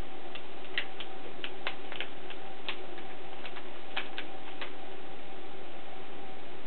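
Irregular small clicks and taps of RAM modules and a Mac Pro memory riser card being handled, over a steady hum.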